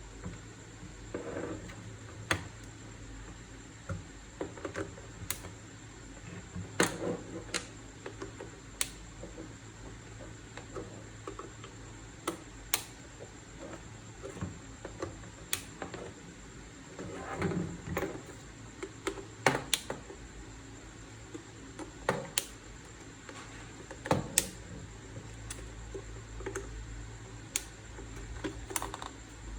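Irregular clicks and taps of small hard parts being handled, with a few soft rustles, over a steady low hum.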